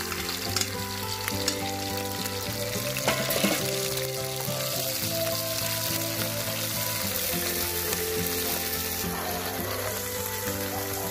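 Wasp larvae and pupae sizzling as they fry in hot oil in a metal wok, with a spatula now and then scraping and clicking against the pan as they are stirred.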